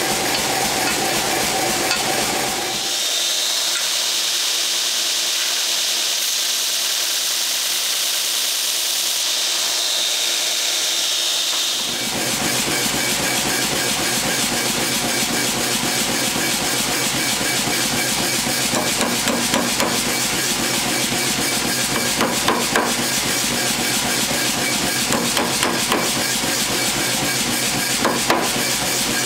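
A steady hiss for several seconds, then a power hammer pounding a hot steel bar with rapid, evenly repeated blows, with a few louder strikes in the later seconds.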